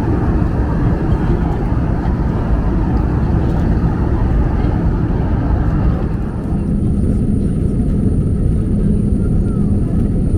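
Steady cabin noise of an Airbus A320 in cruise: a constant rush of airflow and engine hum. About six seconds in it turns duller, with a steady low hum and a faint high whine.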